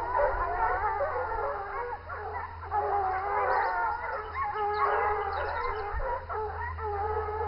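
A pack of scent hounds baying together, many long howling voices overlapping and wavering in pitch: hounds giving tongue on wild boar scent.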